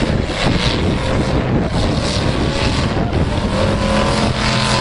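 Demolition derby car engines running and revving loudly over a steady wash of noise, with one engine holding a steady tone from about three and a half seconds in.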